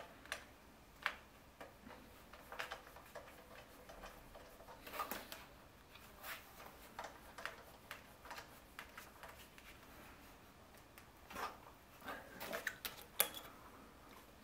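Scattered light clicks and knocks as the metal and plastic parts of a monitor stand are handled and fitted together and its built-in thumbscrew is turned by hand, with a sharper click near the end.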